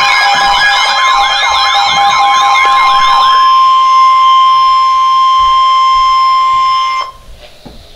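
Emergency Alert System attention signal: a loud warbling, siren-like alarm over a steady high tone for about three and a half seconds. Then the steady tone sounds alone until it cuts off about seven seconds in.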